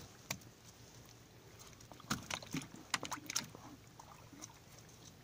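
Gill net being hauled in by hand over the side of a metal boat: faint scattered light knocks and rustles, clustered in the middle, over a faint steady low hum.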